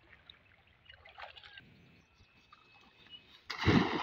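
Quiet river-bank ambience with faint water sounds; near the end a loud burst of rushing noise, about half a second long.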